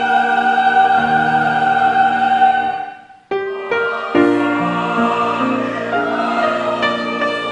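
Church choir singing a hymn, holding a long chord that breaks off about three seconds in, then starting again on new chords.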